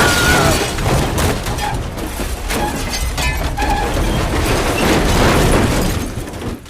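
Elevator crash sound effect: a sudden loud crash followed by sustained rumbling and clattering with many sharp impacts and a few short squeals, fading out at the end.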